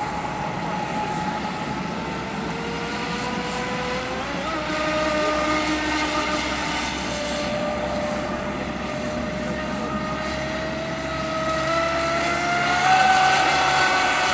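Joysway X-Blaze RC speedboat's brushless electric motor whining at speed. Its pitch steps up about four seconds in and climbs again toward the end, where it is loudest.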